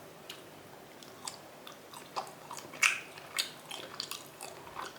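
A person chewing and eating food close to the microphone: irregular wet clicks and smacks of the mouth, the loudest about three seconds in.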